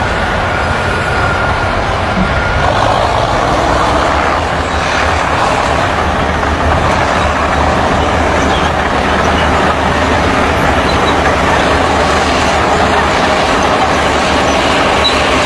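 Heavy earthmoving machine's diesel engine running loud and steady, with a constant low hum under a wide mechanical noise.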